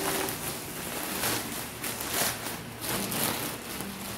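Plastic poly mailer bag crinkling and rustling as it is torn open and the plastic-wrapped items inside are pulled about, in irregular crackles.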